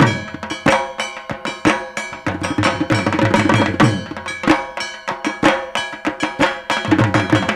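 Dhak, the large Bengali barrel drum of Durga Puja, played in a fast, dense, unbroken rhythm of strokes, with a ringing clang over the drum strokes. This is the Dashami puja beat.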